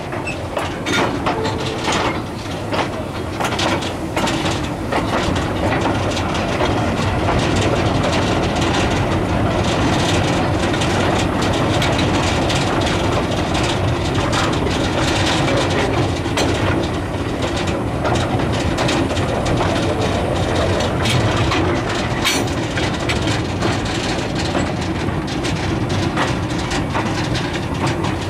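Steam train of the K 92 locomotive under way: a steady rattle of wheels, running gear and couplings on the track, full of small close-set knocks, with one sharper click about three-quarters of the way through.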